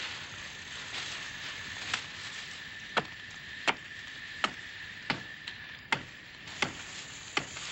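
Hatchet chopping into a small tree trunk, sharp strokes about one every three quarters of a second, starting about two seconds in: felling a sapling for stool legs.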